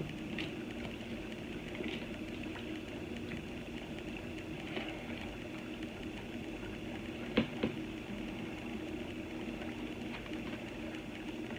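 Steady low room hum with a few light taps and clicks of tarot cards being handled on a table, the sharpest pair about seven seconds in.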